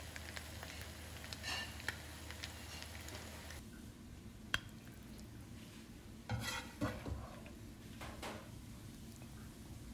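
A utensil scraping and clinking against a frying pan and a ceramic plate as pasta shells are served up: light scrapes, one sharp clink about halfway through, then a short clatter of clinks.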